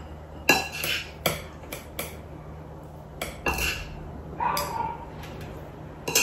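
Spoon and chopsticks clinking and scraping against ceramic plates and bowls while serving fried rice: a run of light, irregular clinks, then a few softer scrapes.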